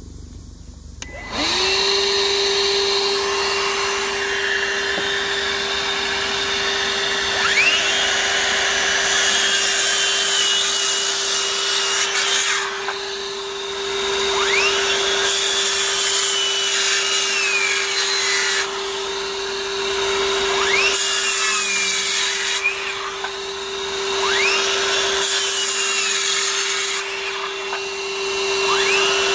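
A Milwaukee 18-volt cordless wet/dry vac switches on about a second in and runs with a steady hum as dust extraction. Over it, a Makita 18V LXT brushless sub-compact 6-1/2 inch circular saw spins up with a rising whine and crosscuts a wooden board, then winds down, five times.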